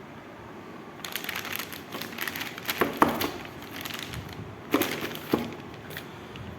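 Motherboard packaging being handled and crinkling as the board is unpacked, with a few sharp clicks from about three to five and a half seconds in.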